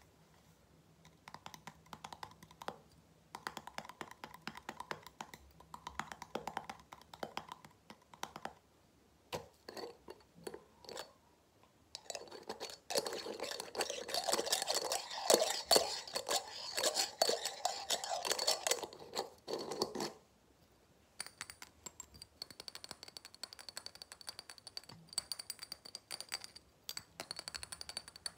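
Fast fingertip and fingernail tapping on a small glass jar with a metal screw lid. In the middle the tapping turns louder and denser, mixed with scratching over the lid. Near the end the rapid taps carry a faint high ringing.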